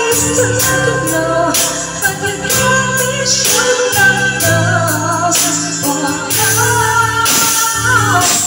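Karaoke: men singing through handheld microphones over a backing track with bass and drum hits.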